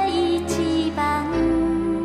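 Background music: a slow, gentle tune with long held melody notes over a low bass line that changes note about a second in.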